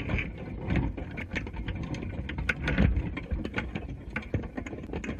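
Underwater sound picked up through a submerged camera inside a wire crab trap: a steady low rumble with irregular clicks and knocks.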